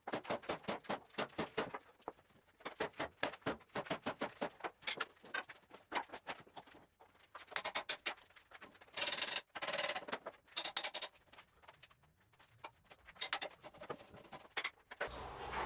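Runs of rapid sharp clicking, many clicks a second, each run lasting a second or two with short pauses between, with a denser, brighter stretch about nine to eleven seconds in.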